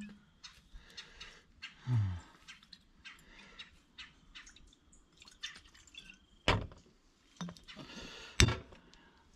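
Bourbon poured from a glass bottle into an enamel camp mug. Near the end come two sharp knocks as the bottle is set back on the table and its cork stopper pressed in, the second one louder.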